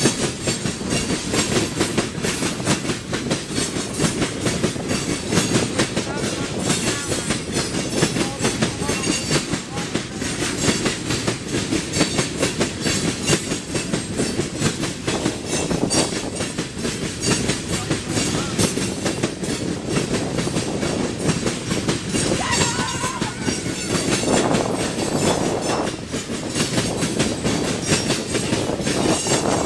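BNSF freight train of tank cars rolling past, its wheels clattering steadily over the rail joints.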